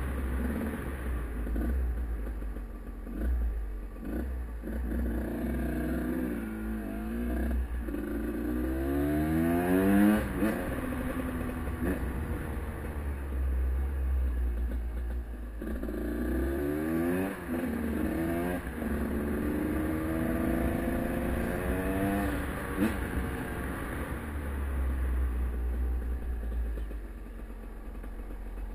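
Husqvarna WR 250 single-cylinder two-stroke dirt bike accelerating hard, its engine note climbing in pitch in a run of steps through the gears, twice, with lower running between.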